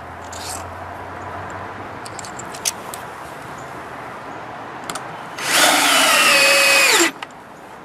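Power drill driving a deck screw into wood for about a second and a half near the end, its motor whine dropping in pitch just before it stops. Before it, a few light clicks and knocks.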